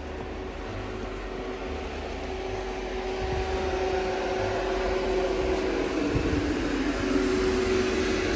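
An engine running with a steady hum, growing louder over several seconds and dropping a little in pitch about six seconds in.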